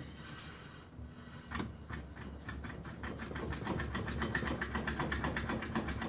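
Rapid clicking from the driveline of a BMW E39 528i as it rolls along, over a low steady rumble. The clicks start about a second and a half in and come faster and faster. The owner traces the noise to the drive shaft.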